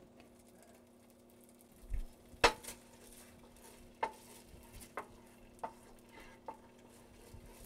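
A wooden spoon stirring tomato paste into hot olive oil and garlic in a stainless steel sauté pan, knocking sharply against the pan about once a second, over a faint sizzle. A low thump comes about two seconds in, just before the stirring starts.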